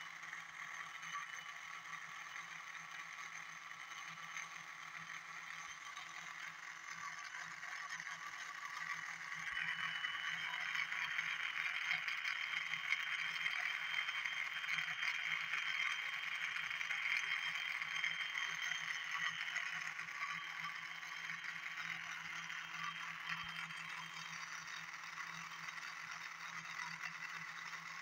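Bedini SHK pulse motor/generator running: a steady rattling whir over a low hum, growing louder for several seconds in the middle and easing off again.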